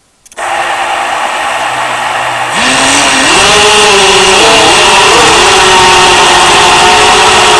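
ALIGN MR25P racing quadcopter's brushless motors and propellers. They start suddenly with a loud whir just after the start, throttle up about two and a half seconds in with a rising whine, then hold a steady, loud buzz whose pitch wobbles a little with the throttle.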